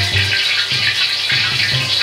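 Background music with short pitched notes and a low bass pulse, over a steady hiss.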